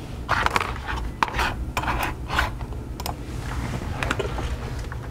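Irregular handling noises on a workbench: a string of short scrapes and clicks as objects are moved and set down, over a steady low hum.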